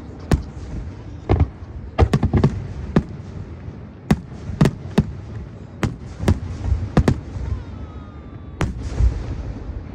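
Aerial fireworks exploding: a string of sharp bangs at irregular intervals, about a dozen in all, with a low rumble between them and a faint falling whistle near the end.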